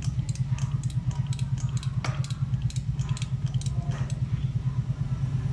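Gear wrench ratcheting in quick strokes, a run of sharp irregular clicks, over the steady low, fast-pulsing hum of an idling engine.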